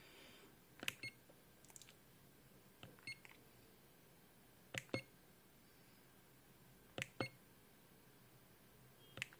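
Button presses on a ZOYI ZT-DQ01 handheld LCR meter, each a short click followed by a brief high beep, five times about two seconds apart as the test frequency is stepped.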